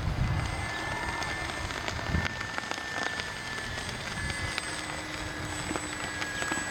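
Wind rumbling on the microphone with scattered clicks, and over it the faint steady whine of a radio-controlled model airplane's motor flying overhead.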